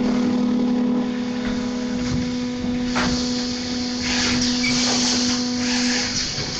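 Injection moulding machine with in-mould labelling, making thin-wall containers, running through its cycle: a steady humming tone throughout, a sharp click about three seconds in, then hissing for a few seconds.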